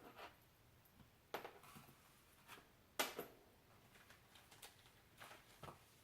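Near silence with a few faint, short clicks and rustles of jewelry and its packaging being handled, the clearest about a second and a half and three seconds in.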